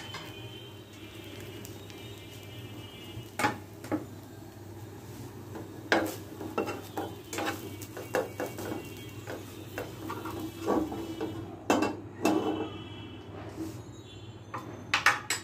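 Cooking utensils clinking and knocking against a pan, a dozen or so sharp irregular taps, over a light sizzle.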